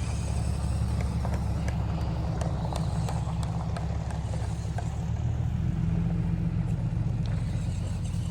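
Toy remote-control monster truck driving over the ground: a steady low rumble with scattered small clicks.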